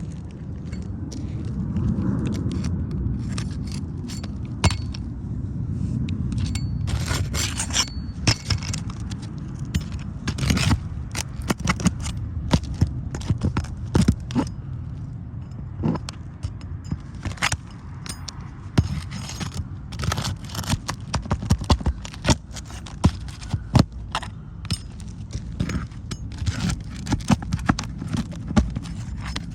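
Asphalt roof shingles scraping and crackling as their tabs are handled and pried up, with many sharp clicks and taps. A low rumble of wind or handling noise sits under the first several seconds.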